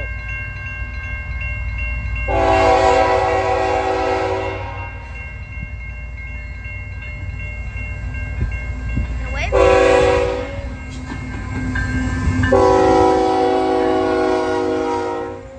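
Canadian National freight locomotive sounding its multi-chime air horn for a grade crossing: a long blast, a short one and another long one. Under the horn the crossing bell rings steadily and the train rumbles low as it rolls up.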